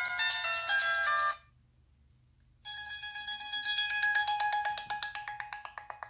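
Sony Xperia Z built-in ringtones. A melodic ringtone of quick shifting notes ends about a second in, and after a short pause another ringtone starts, a rapidly repeating trill-like pulse that fades out.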